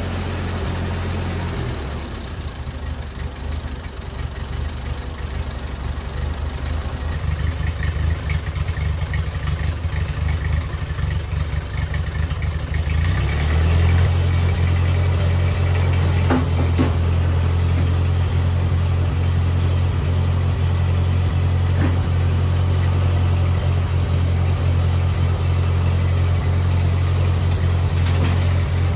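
Ford N-series tractor's four-cylinder engine idling steadily, run to check the mixture after the carburetor was cleaned and refitted. About 13 seconds in the sound changes to a louder, even idle.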